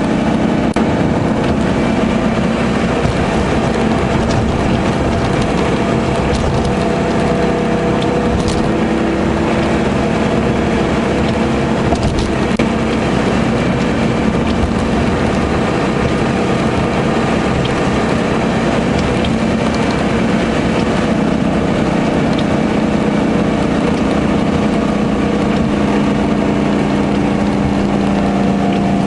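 Lamborghini Gallardo's V10 engine running steadily at cruise, heard from inside the cabin, over tyre noise on a wet road and the windshield wipers sweeping.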